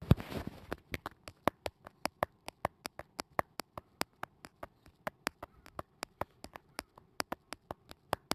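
Rapid run of sharp mouth clicks, about four to five a second, some louder than others, after a brief rustle at the start.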